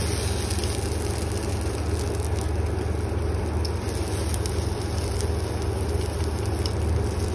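A steady low hum with a hiss over it, and a few faint soft scrapes of a wooden spatula pressing a chilla in a nonstick pan.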